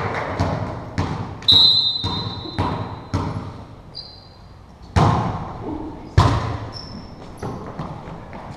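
Volleyball being bounced and struck in an echoing gymnasium: several lighter thumps, then two sharp smacks about a second apart, about 5 and 6 seconds in. Sneakers squeak briefly on the hardwood floor.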